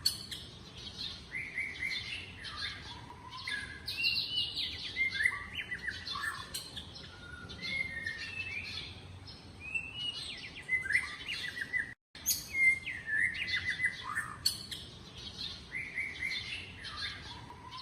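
Several birds chirping and calling over one another in short quick notes and brief whistled glides. The sound cuts out for a moment about twelve seconds in.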